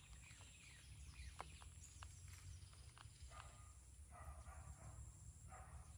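Near silence, with a few faint animal calls and some light clicks.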